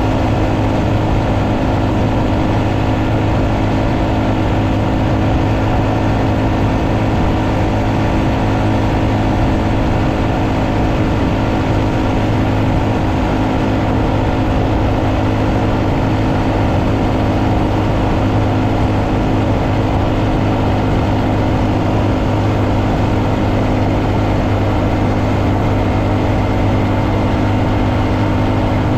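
Honda Monkey's 125 cc single-cylinder engine running at a steady cruising speed, its note held even, under wind and road noise.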